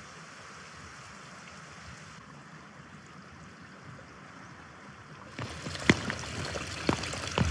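Faint steady outdoor rushing, like distant running water. About five seconds in it gives way to louder open-air noise with footsteps on a stony path, roughly one step a second.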